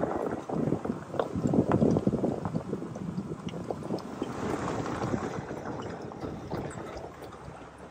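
Jeep's tyres crunching and popping over loose gravel and rocks on a dirt trail, with the vehicle's running noise and some wind on the microphone. The crunching is loudest about two seconds in and dies down toward the end.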